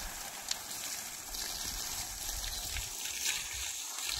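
Garden hose spraying water, its end partly covered by a finger to make a fan of spray: a steady hiss of water falling on wet soil and puddles.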